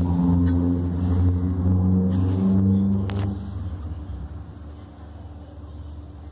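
Low, steady motor hum, loud for about the first three seconds and then fading away.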